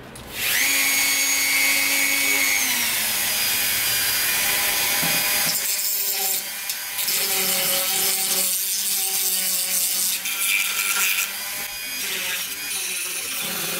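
Dremel 4000 rotary tool with a sanding bit spinning up with a high whine that drops in pitch about three seconds in. It then sands the inside of carved wooden cups, a rougher grinding whose pitch wavers as the bit is pressed into the wood.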